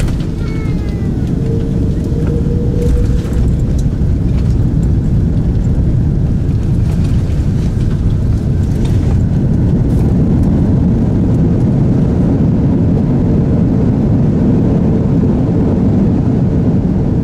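Loud, steady low rumble inside the cabin of an Airbus A330-300 during its landing rollout with the spoilers up: the Rolls-Royce Trent 772B engines and the wheels running on the runway.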